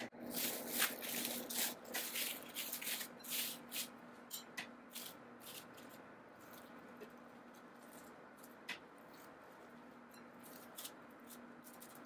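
Plastic cling film crinkling and crackling as hands open it around a slab of chilled scone dough, dense for the first five seconds or so, then thinning to occasional crackles and light taps. A faint steady hum runs underneath.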